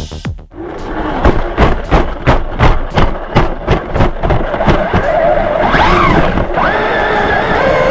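Traxxas Hoss 4x4 VXL RC monster truck bumping down steps with a run of sharp thumps, about three a second. Near the end its brushless motor whines, rising as the throttle opens and then holding a steady pitch.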